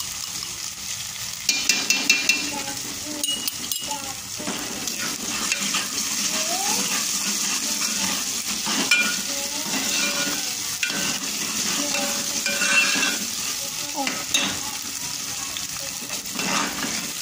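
Ginger-garlic paste sizzling in hot oil in a metal pot, with a metal ladle stirring and scraping against the pot; several sharp clinks and scrapes come about two seconds in and again near the end. The paste is frying until the garlic's water dries off.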